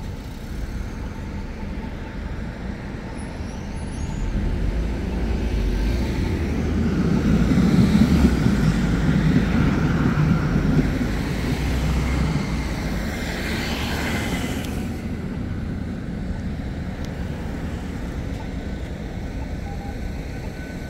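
Street traffic driving past, with one louder vehicle rumbling by closely in the middle, rising to a peak and fading away.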